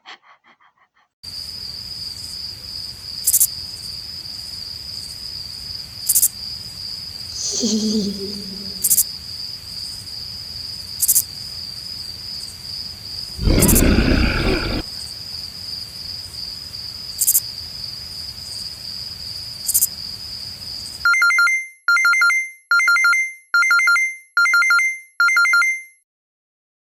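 Synthetic sound effects: a steady high-pitched whine with sharp clicks every few seconds, a short pitched sound about 8 seconds in and a loud burst around 14 seconds. Then about six electronic two-tone beeps like a phone ringing, roughly 0.8 s apart, before it cuts off.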